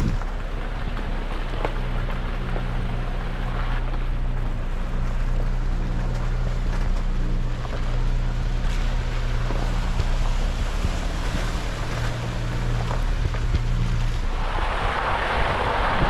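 Jeep engine running steadily at low revs under a rough noise of driving, with a louder rush of noise rising near the end.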